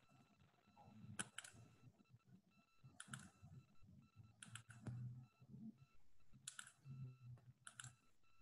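Faint clicks of a computer keyboard, about half a dozen keystrokes spaced a second or two apart, some in quick pairs, over a low background murmur.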